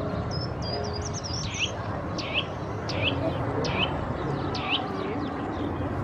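A bird calling: a brief high twitter about a second in, then a series of about five sharp calls that each sweep down in pitch, spaced a little under a second apart, over a steady outdoor background rumble.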